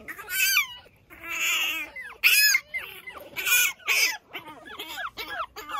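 Pekingese puppy whining: a run of about ten short, high-pitched cries. It is crying to get to its mother.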